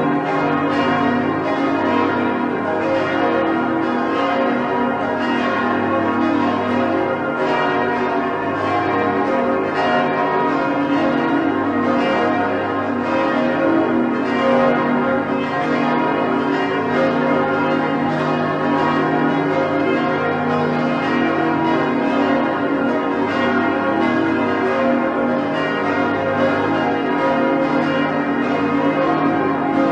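Large church bells swinging and ringing a continuous peal, with strikes coming close together and overlapping over a sustained wash of ringing tones. This is the devotional ringing for the Hour of Mercy.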